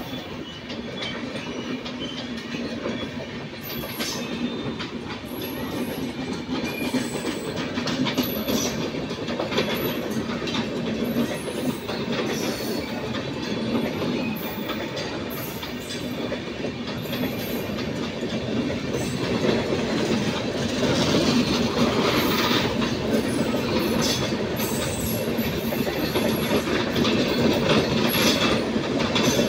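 Indian Railways LHB passenger coaches rolling past close by, their wheels clattering over the rail joints, with thin high wheel squeals now and then. The sound grows louder in the second half.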